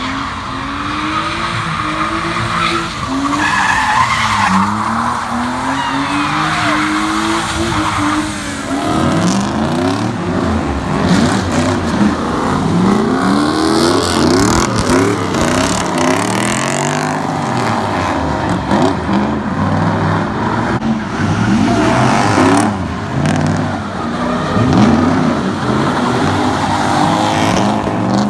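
Drift cars' engines revving hard, the pitch swinging up and down over and over as the throttle is worked through the slides, with tyres skidding on wet pavement. About eight seconds in the sound changes, and after that two engines overlap as cars drift together.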